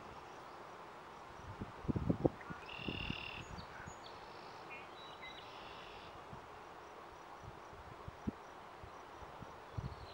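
Outdoor natural ambience: a steady faint hiss, with a run of short high chirps a few seconds in. A few soft low thumps come about two seconds in and again near the end.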